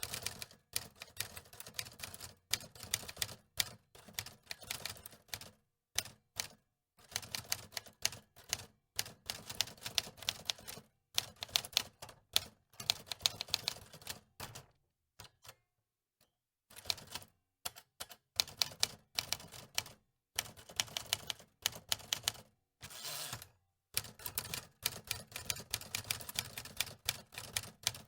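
Mechanical typewriter being typed on: rapid runs of key clacks and typebar strikes, broken by a few short pauses.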